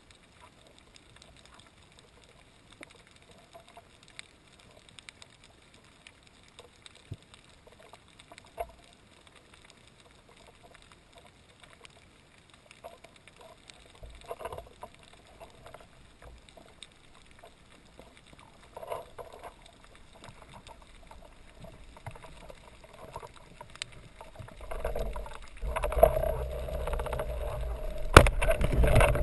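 Underwater ambience picked up through a camera housing: faint scattered clicks and crackle over a low hiss, with a couple of brief swishes. Near the end a louder, rough rushing of water sets in as the camera moves up off the reef.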